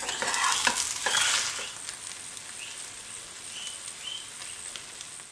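Egg omelette frying in oil in a nonstick pan, with a few sharp clicks and scrapes from a metal spatula and fork in the first second or so as it is turned over, then a steady sizzle.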